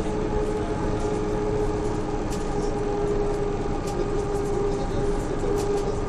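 Jelcz M122MB city bus's Mercedes-Benz OM447hA six-cylinder diesel and ZF 4HP590 automatic gearbox running steadily, a low rumble with a steady whine over it and a few light rattles.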